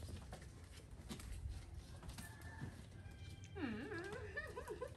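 Faint light taps and rustles from small monkeys climbing on a plastic pipe frame, with a brief wavering vocal call about three and a half seconds in.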